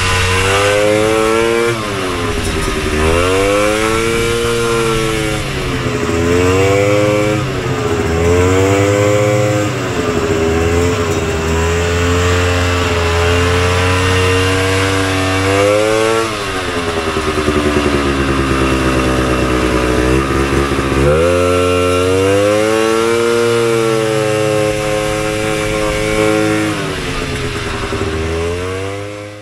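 1972 Polaris Colt's 250cc single-cylinder two-stroke engine revving up and dropping back again and again under throttle, its pitch climbing and falling several times before trailing off at the end. It is running but not yet well tuned, in the owner's view needing carburettor tuning.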